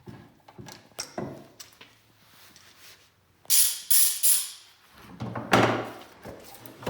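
Wooden workshop pieces being handled: a few light knocks, then three quick scrapes about halfway through and a longer rub a second later.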